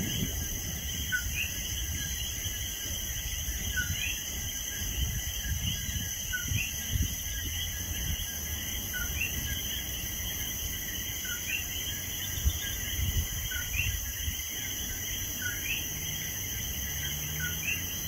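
Coquí frogs calling their two-note "co-qui", a short low note followed by a rising higher one, repeating about once a second, over a steady shrill insect chorus and a low rumble.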